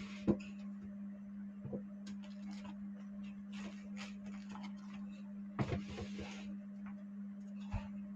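Irregular clicks, taps and short scrapes of hands handling sewing machine parts, over a steady low electrical hum.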